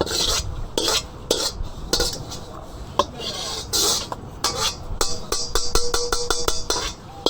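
Metal utensil scraping and clanking against a wok in irregular strokes, speeding up near the end to a fast run of about six scrapes a second with the pan ringing.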